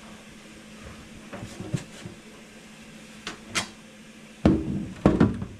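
Household items being handled while cleaning a fridge: a few light clicks and taps, then two louder clunks near the end, over a faint steady hum.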